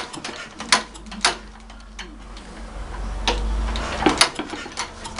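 Start attempt on a 1945 Wolseley WD2 single-cylinder stationary engine: a few sharp clacks and knocks, with a low rumble lasting a few seconds in the middle as it is turned over. It does not settle into steady running.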